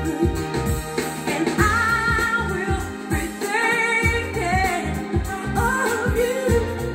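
A pop song with a sung vocal over a steady bass line and beat, played back through a hi-fi system driven by a TEAC A-1D integrated amplifier. The singer holds long, wavering notes.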